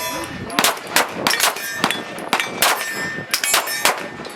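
A string of gunshots at steel targets: sharp cracks at uneven spacing, hits leaving the steel plates clanging and ringing.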